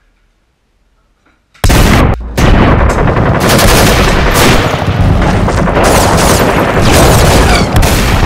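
Machine-gun fire sound effect: after near silence, rapid continuous automatic gunfire bursts in about a second and a half in, breaks off very briefly, then keeps firing without a pause. It is an added effect, not the toy blaster's own sound.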